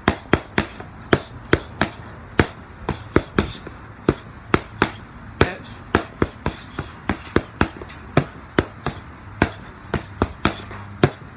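Boxing gloves smacking leather focus mitts in quick combinations: sharp slaps, often two to four in a row, about thirty in all.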